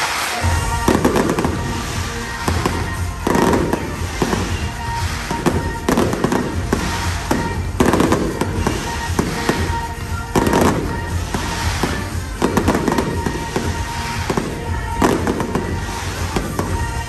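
Fireworks display: aerial shells bursting one after another about every second or two, with crackling between the bangs, over the show's music playing through loudspeakers.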